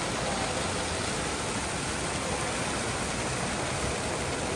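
Fountain jets splashing into a stone basin, a steady rush of falling water with faint crowd murmur beneath.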